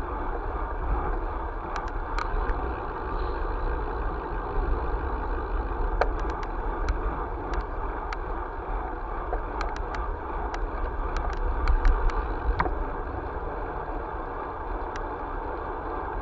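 Steady travel noise from a vehicle moving along an asphalt road: tyre and wind rumble on the mounted camera's microphone, with scattered light clicks and rattles.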